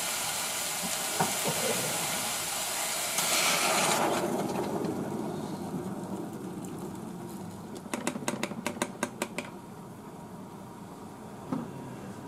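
Hot water poured from an electric kettle into a saucepan of vegetables. A steady hiss, loudest just before it ends sharply about four seconds in, gives way to the duller sound of the pour, followed by a quick run of clicks near the end.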